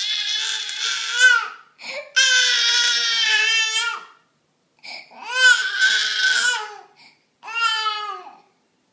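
A baby crying angrily in a tantrum: four long, high wails with short breaths between them.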